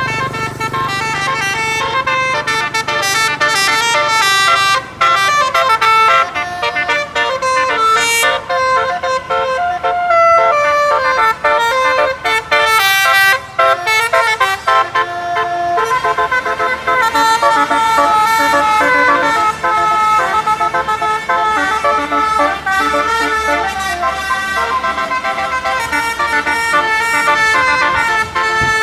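Multi-tone telolet bus horn playing a long melody of held notes that change pitch in steps, with short breaks between phrases. A low engine rumble sits under the first couple of seconds.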